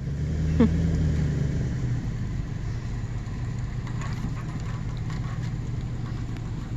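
Motor vehicle engine running steadily with a low hum, a little louder for the first couple of seconds, then even.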